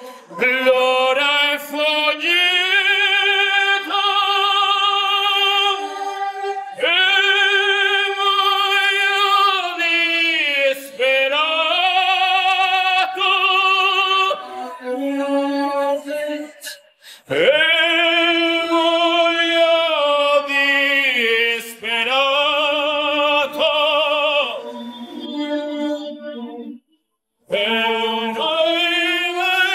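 Operatic singing on the soundtrack: one voice holds long notes with a wide vibrato, phrase after phrase with short breaks between them, and drops out briefly near the end.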